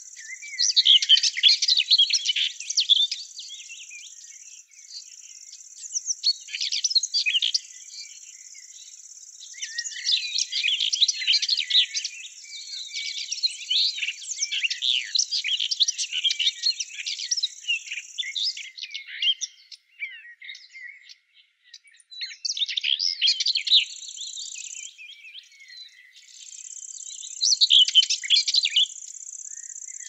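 Songbirds singing in several bouts of rapid, twittering chirps, over a steady high-pitched insect buzz that drops out for a few seconds a little past the middle.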